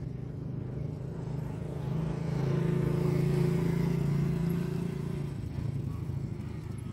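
A motorcycle passes close by, its engine growing louder to a peak about three to four seconds in and then fading, over a steady low engine hum.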